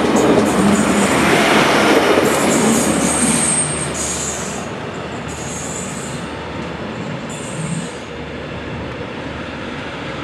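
A train runs close by for about four seconds, then the noise drops to that of a red diesel railcar (DB class 622) rolling slowly through a curve. High-pitched wheel squeal comes and goes in several short stretches, the last about eight seconds in.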